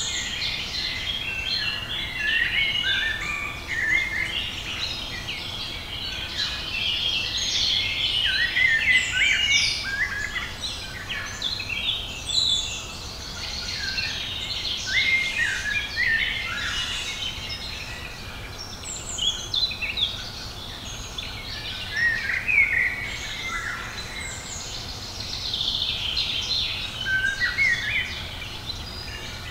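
Several songbirds singing at once, a continuous run of overlapping chirps and warbling phrases, over a faint low rumble.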